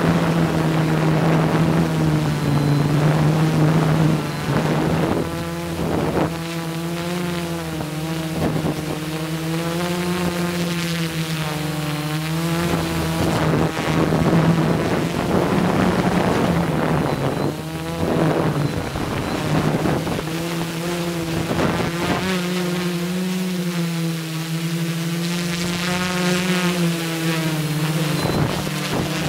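Multirotor copter's electric motors and propellers humming steadily, the pitch wavering up and down as the craft pans and tilts, with short gusts of wind on the microphone.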